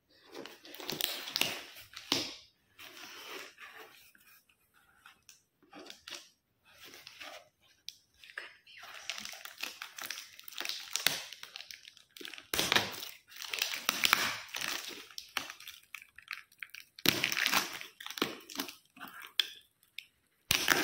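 Cardboard gift box and its brown paper packing being torn open and crumpled by hand, in irregular bursts of tearing and crinkling.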